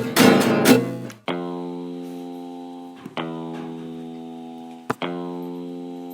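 Guitar music: quick rhythmic strumming for about a second, then single chords struck and left to ring out, one about every two seconds, each slowly fading.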